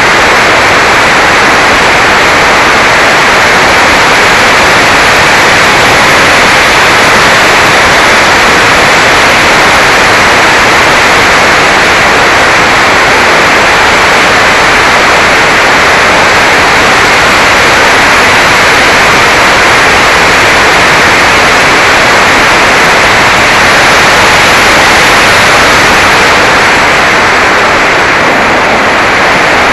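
Loud, steady rushing noise from an action camera mounted on a Mini Talon RC flying wing in flight: wind over the camera's microphone mixed with the plane's electric motor and propeller.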